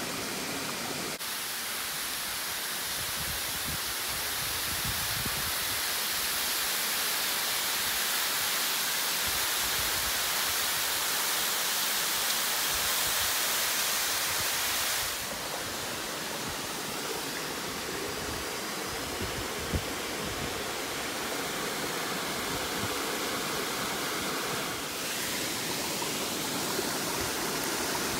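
Running water of a small mountain stream spilling over rock, a steady rushing hiss. Its loudness and tone shift suddenly about a second in, around the middle, and again near the end.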